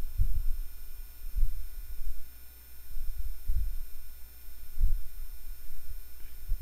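Handling noise from the camera microphone as the camera is moved: about five irregular dull low thumps. A faint steady high-pitched electrical whine runs underneath.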